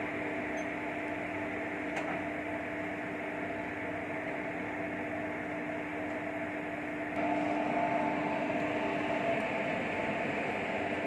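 Diesel locomotive idling with a steady, even hum, a little louder from about seven seconds in.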